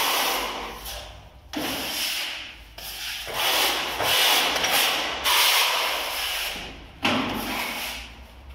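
Plastering trowel scraping and smoothing across a plastered wall in long strokes, about five of them, each a second or more long with short pauses between.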